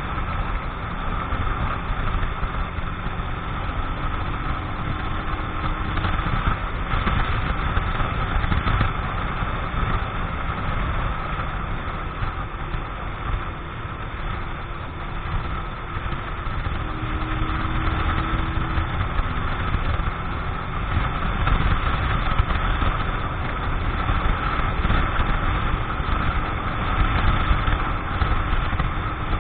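Keeway X-Light 125 motorcycle engine running at a steady cruise of about 65 km/h, heard from the rider's seat, with wind rushing over the microphone.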